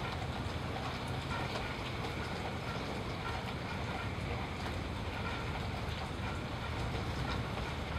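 Steady rain with a continuous low rumble underneath.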